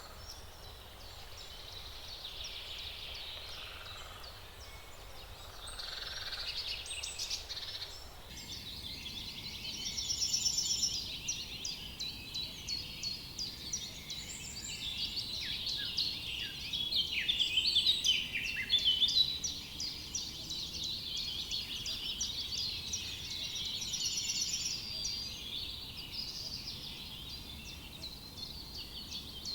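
Several forest songbirds singing and chirping at once, in many short overlapping trills and calls over a soft steady background hiss. The song grows busier after about 8 seconds and is loudest a little past the middle.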